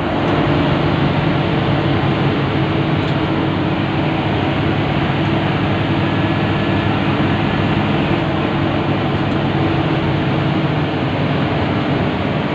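Intercity bus underway at a steady speed, heard from inside the cabin: a constant engine drone over road and tyre noise, with no horn.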